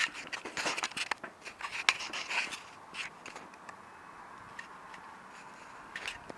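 Handling noise of objects being moved about on a workbench: a quick run of clicks and scrapes for the first couple of seconds, then a few isolated clicks.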